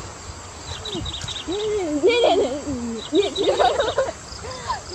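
Young women's voices exclaiming and chattering in short bursts, loudest in the middle, over insects chirping in brief repeated trills.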